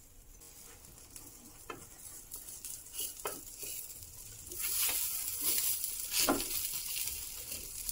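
Folded egg-and-vegetable omelette sizzling in oil on a flat tava, the sizzle growing louder about halfway through. A few light clicks and scrapes of a metal spatula against the pan.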